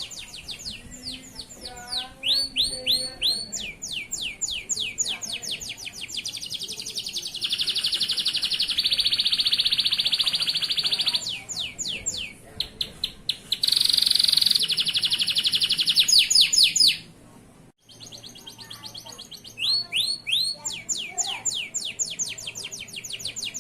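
Male canary singing: rapid trills of repeated down-sweeping notes, broken by two long fast rolls. The song stops for a moment just before 18 seconds in, then carries on.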